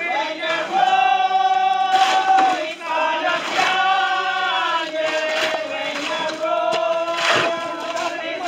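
A group of men and women singing a hymn together, unaccompanied, in long held notes.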